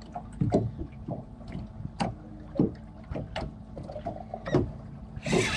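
Scattered knocks and clicks of fishing gear against a boat while a hooked fish is being fought on rod and reel, over a low steady hum. A burst of rushing noise starts near the end.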